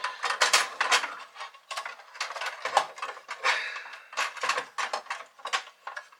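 Hands working the fluorescent lamp fixture out of a slot machine cabinet: a run of irregular clicks and knocks of hard parts being handled.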